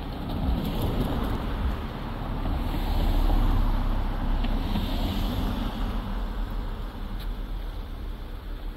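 A car driving past on the street, its engine and tyre noise swelling to a peak about three seconds in and then fading, with wind on the microphone.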